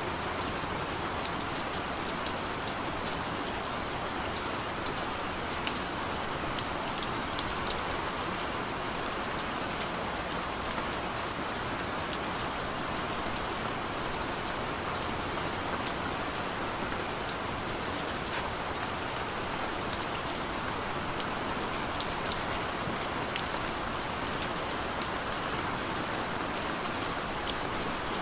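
Steady rainfall: an even hiss of rain with many small scattered drop ticks.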